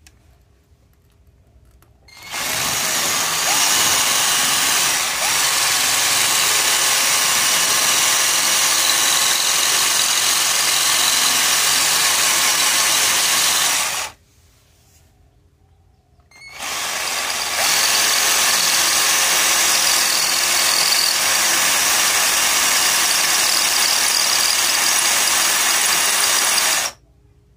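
12-volt cordless drill's motor running at steady speed in two long runs of about ten seconds each, with a short pause between. Each run starts quickly and cuts off sharply when the trigger is released.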